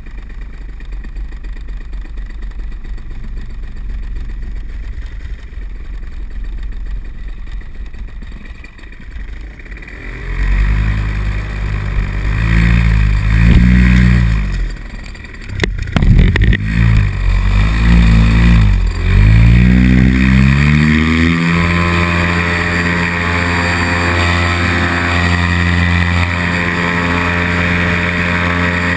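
Paramotor's two-stroke engine running low for about ten seconds, then opened up, its pitch rising and falling repeatedly as the throttle is worked during the launch run. From about two-thirds in it holds a steady high-power note for the climb-out. There are a couple of sharp knocks around the middle.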